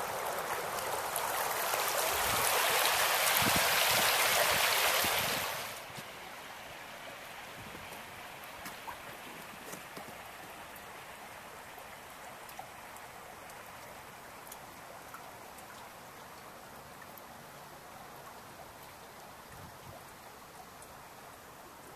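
Creek water running, loud for the first few seconds and then dropping suddenly to a quieter steady flow with scattered small drips from icicles along the bank.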